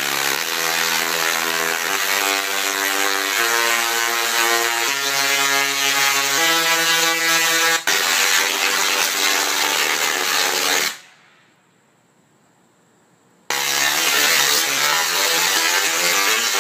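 A 10 kVA dual-resonant solid-state Tesla coil (DRSSTC) firing sparks, which make a loud, harsh buzzing tone. The pitch steps from note to note about every second and a half as the coil is played like an instrument. It falls silent for about two and a half seconds and then starts buzzing again near the end.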